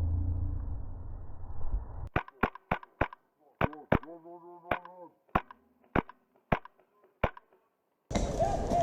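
Wolverine MTW HPA airsoft rifle firing about eleven single shots as sharp cracks at uneven spacing, starting about two seconds in, after a low rumble.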